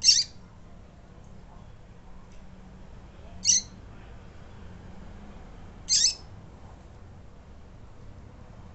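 Female double-collared seedeater (coleiro) peeping: three short, high call notes, about two and a half to three and a half seconds apart.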